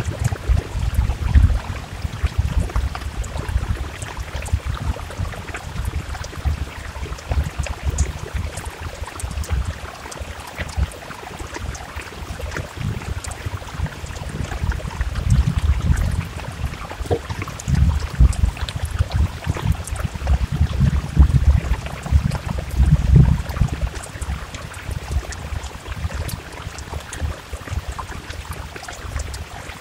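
Heavy rain falling, with fine ticks of drops, over a low rumble that swells and fades several times.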